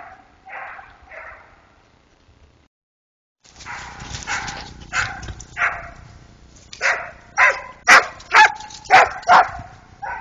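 A dog barking repeatedly while chasing deer: three barks at the start, a short break, then a run of about ten sharp barks that grow louder near the end.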